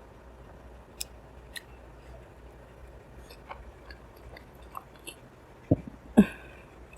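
Close-miked mouth sounds of a person chewing soft, sweet food, with scattered small wet clicks and two louder bites near the end.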